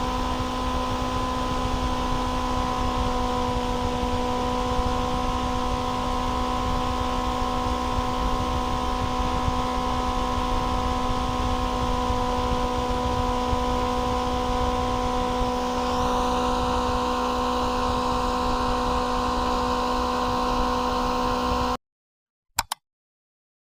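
Homemade fan 'jet engine', a mini motor on a PWM speed controller spinning its fan blade at high speed: a steady whine over a rush of air. It cuts off suddenly near the end, followed by a short click.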